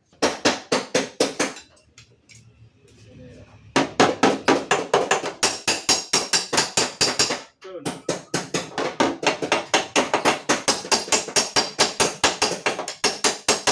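Hammer striking a dented steel car door panel in quick, even blows, several a second, beating the creased metal back straight. The blows pause for about two seconds early on, then run almost unbroken, with one brief break about halfway through.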